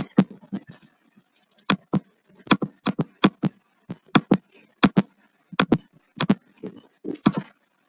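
Computer mouse clicking: a run of sharp, irregular clicks, a dozen or more, many in quick pairs, as a brush is dabbed onto a canvas one click at a time.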